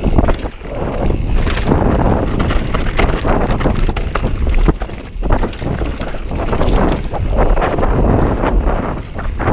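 Wind buffeting a helmet-mounted GoPro's microphone as a mountain bike descends a dirt singletrack at speed, with the tyres rumbling over the ground and frequent quick clattering knocks from the bike over roots and bumps.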